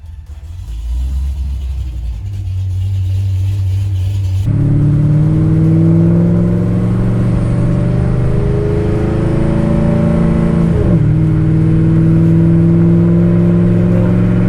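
Pontiac G8's V8 engine pulling under acceleration: a low rumble at first, then after a sudden change a little over four seconds in, an engine note climbing steadily in pitch, dropping briefly at a gear change and climbing again.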